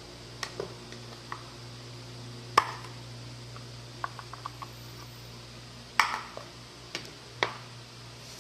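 A kitchen knife knocks and taps on a plastic cutting board as garlic and a red onion are chopped, in scattered single strikes: two sharper knocks a few seconds apart and a quick run of light taps in between. A steady low hum runs underneath.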